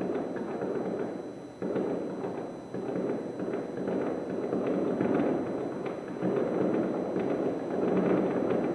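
Fireworks display heard from about 1.3 km away: a continuous rumble of rapid overlapping bangs and crackles. Fresh volleys come in sharply a little under two seconds in, again near three seconds, and just past the middle.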